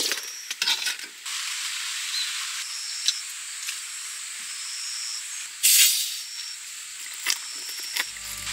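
Steady high hiss with scattered small clicks, and a brief louder rustle about six seconds in; music comes in near the end.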